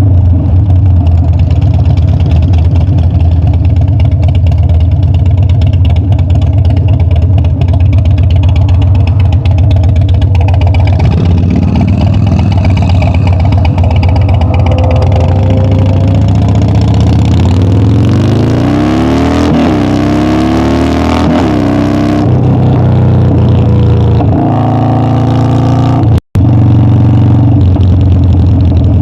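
Harley-Davidson Dyna V-twin engine and exhaust on the road, holding a steady note at first, then rising and falling revs through the gears in the second half. The sound cuts out for an instant near the end.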